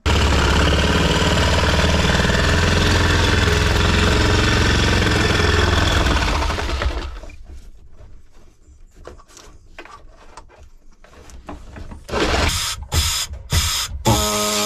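Electric power saw running steadily as it cuts a hole for a speaker, then running down about seven seconds in. A stretch of light clicks and knocks follows, then the saw starts again in short bursts near the end and settles back into steady cutting.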